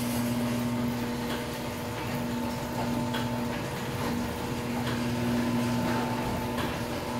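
Overhead Door model 100A garage door opener running the door, a steady hum from its old-style AC motor with faint ticks from the drive. It runs fairly quietly after a tune-up and a firm remount.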